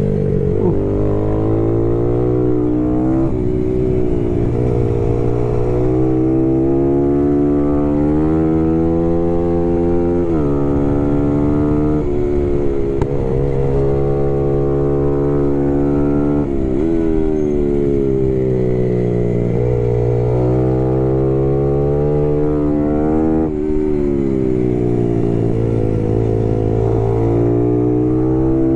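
Small race motorcycle's engine heard from on board under hard riding: the pitch climbs as the rider holds the throttle open, then falls away sharply as he backs off or shifts for a corner, which happens four or five times.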